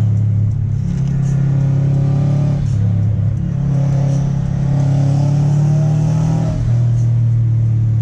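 Subaru WRX STI's turbocharged flat-four engine heard from inside the cabin while driving, its pitch climbing as it pulls through each gear and dropping at the gear changes, the clearest one late on.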